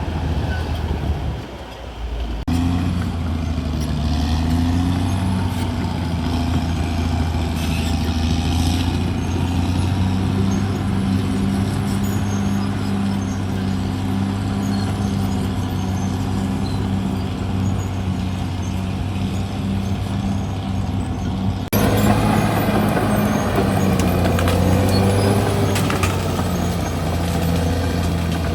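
CAT D6R XL bulldozer's diesel engine running steadily under load. The sound dips briefly about two seconds in and changes abruptly, a little louder, about three quarters of the way through.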